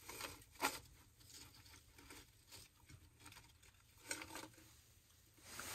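Plastic food packaging crinkling and rustling, in scattered short crackles with a sharper one about half a second in and another a little after four seconds.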